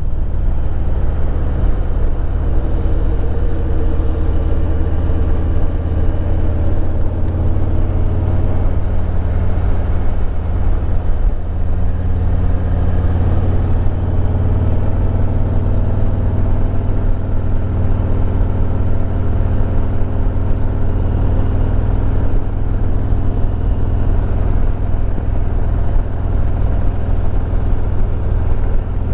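A 2022 Harley-Davidson Road Glide Limited's V-twin engine running while the bike is ridden, a steady low rumble with road noise. Its note drifts gently up and down with speed.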